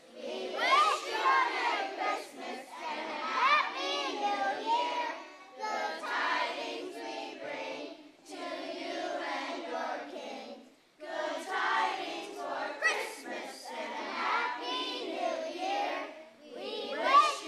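A large group of children singing together in phrases a few seconds long, with several short breaks between them.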